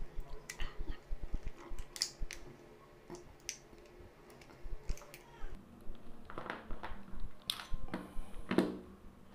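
Hi-Capa airsoft pistol being taken apart by hand: sharp plastic and metal clicks in the first few seconds, then longer scrapes in the second half as the slide comes off the frame.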